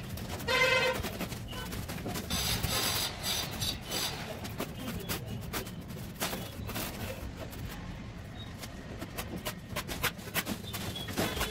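Steel trowel scraping and slapping wet cement mortar as plaster is spread and smoothed on a wall, in a run of short scrapes and taps. A brief pitched tone sounds about half a second in.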